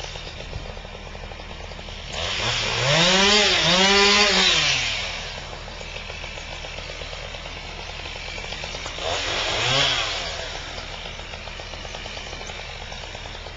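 Chainsaw revved hard twice in quick succession, pitch rising and falling each time, then revved briefly once more, over a steady engine drone.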